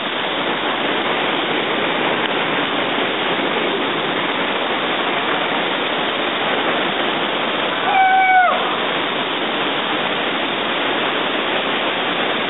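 River rapids rushing steadily over rocks and between boulders. About eight seconds in, a short high-pitched call cuts through briefly, its pitch dropping at the end.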